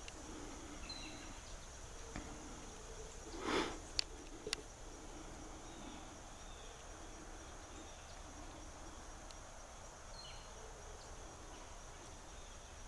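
Steady, high-pitched insect drone outdoors, with a brief rustle about three and a half seconds in and two faint clicks just after; no engine runs.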